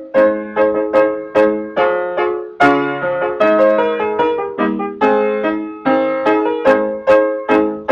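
Background piano music: chords struck in a steady rhythm, about two to three a second, each fading before the next.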